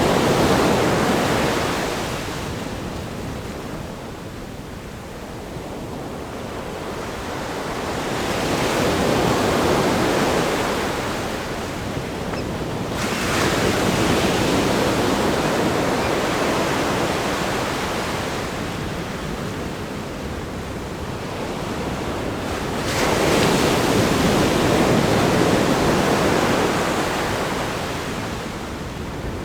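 Ocean surf breaking against a rock groin and washing up a sandy beach, a continuous rush that swells and ebbs with each set, with waves crashing about 13 and 23 seconds in. Some wind on the microphone.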